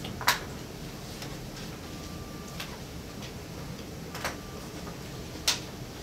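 Sheets of paper handled and shuffled close to a table microphone: a few short, crisp rustles, the loudest about a third of a second in and again near the end, over a steady low background noise.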